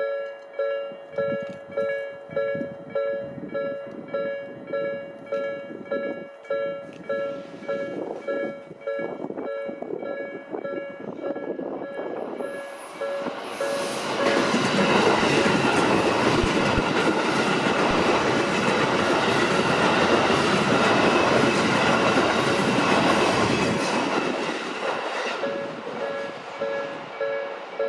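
Japanese level-crossing warning bell ringing in a quick, even repeat, about two strokes a second. About halfway through, a Tobu Skytree Line train runs over the crossing, and its loud rumble and wheel noise drown out the bell for about ten seconds before the bell is heard again near the end.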